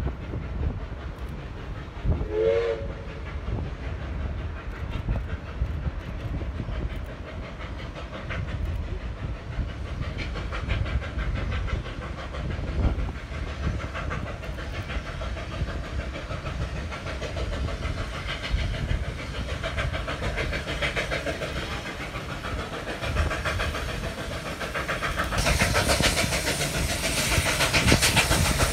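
Steam locomotive working a train, its exhaust chuffing in a fast, steady rhythm that grows much louder as it comes closer near the end. A short, wavering steam whistle sounds about two and a half seconds in.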